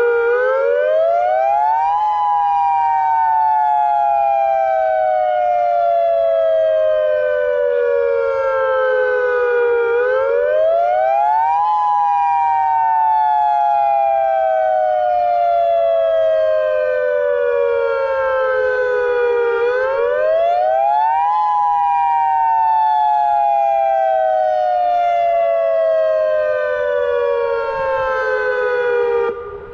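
Federal Signal Modulator 2008 dual-tone electronic warning siren sounding the Attack signal. Two tones move together: each cycle climbs quickly for about two seconds, then falls slowly for about eight. It goes three times before cutting off near the end.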